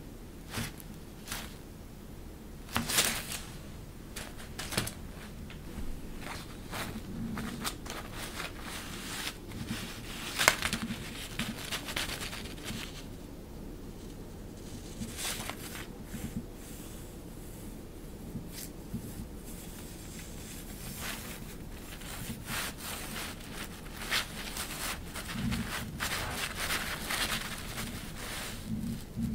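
Thin, crinkly plaid cloth rustling and crackling as a cat teaser's fluffy toy is dragged under and over it, in irregular bursts with a few sharper crinkles, busiest near the end.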